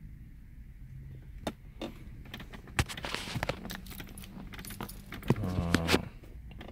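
Car keys jangling and clicking as they are handled. Near the end comes a louder, short mechanical buzz of about half a second, opening and closing with a click.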